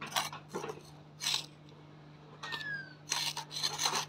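A small plastic trowel scraping and digging into dry, gravelly soil: several short scrapes, coming closer together near the end.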